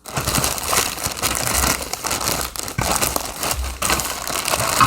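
Plastic packaging being handled and pulled open, crinkling and crackling continuously.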